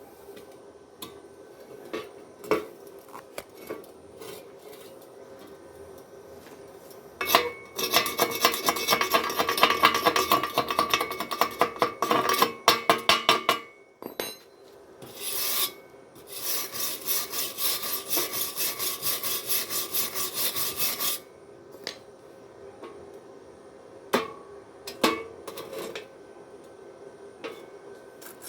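Rapid back-and-forth scraping strokes on metal in two spells of several seconds, about four strokes a second, with a few single knocks before and after.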